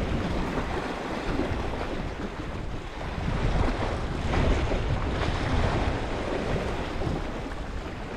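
Sea waves washing against a rocky shore, with wind rumbling on the microphone; the surf swells a little louder around the middle.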